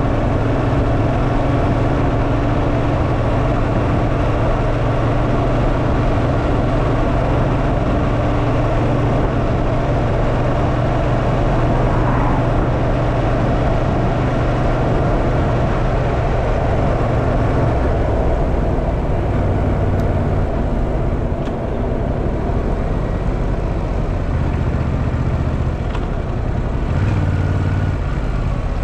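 Motorcycle engine running at a steady cruising speed with wind and road noise. In the last third the engine note drops lower as the bike slows.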